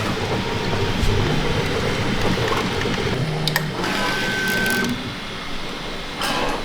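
Bambu Lab 3D printer's stepper motors whirring and whining in short pitched steps during a filament colour change, with a couple of sharp clicks.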